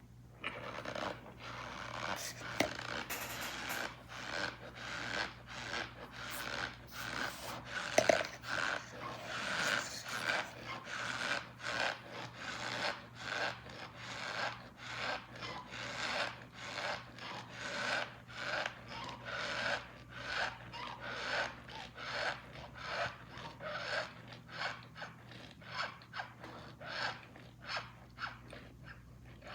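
Packed cornstarch being squeezed over and over, giving a squeaky crunch about once a second.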